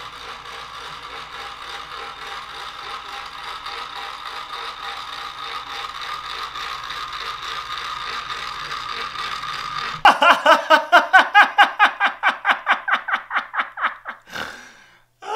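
Stepper motor of a motorized camera slider running with a steady whir. About ten seconds in, a rapid series of loud, high-pitched squawks, about six a second, cuts in and lasts some four seconds.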